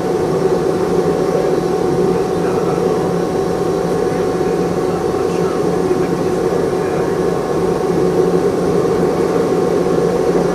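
Cabin noise of a Boeing 717-200 with its Rolls-Royce BR715 turbofans running: an even, steady rush with a faint constant whine, heard from inside the cabin.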